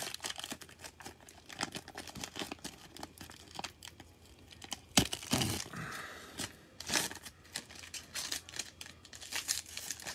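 Plastic wrapper of a trading-card pack crinkling and tearing as it is pulled open by hand, in irregular crackles, with a louder sharp snap about five seconds in.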